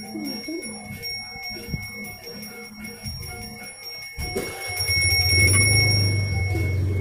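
Balinese pemangku's genta, a bronze hand bell, rung continuously with rapid clapper strokes, giving a steady high ringing. About four seconds in, a motorbike engine nearby rises and becomes the loudest sound under the bell.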